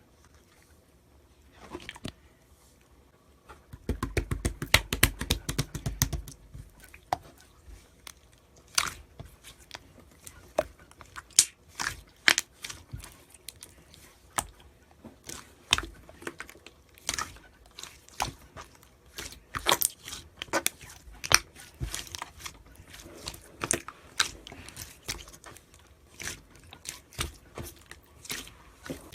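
Purple slime being squeezed and poked by hand, making sharp, crackling pops and clicks at irregular intervals. There is a dense run of pops with low thuds about four to six seconds in.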